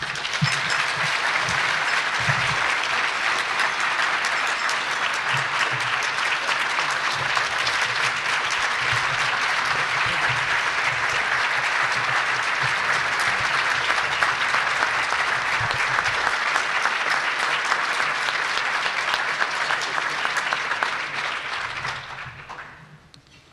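Audience applauding: dense, steady clapping that starts at once and holds for about twenty seconds, then dies away near the end.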